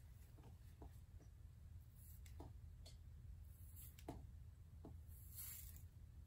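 Near silence: a low room hum with faint scattered ticks and rustles from an electric hot comb and wig hair being handled, and a soft hiss about five seconds in.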